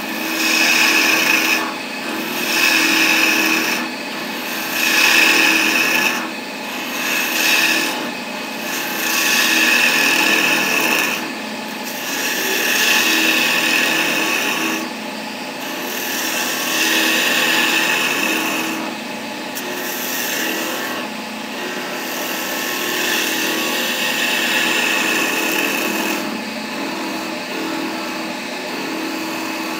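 A wood lathe running with a steady hum while a flat chisel cuts a spinning wooden handle blank, each pass a rasping hiss of shavings coming off. The passes are short, about one every second or two, at first, then become longer and smoother.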